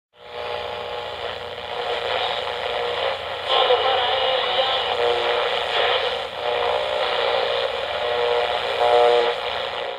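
Steady noisy sound with faint steady tones running through it, thin and narrow like an old radio speaker, cutting off suddenly at the end.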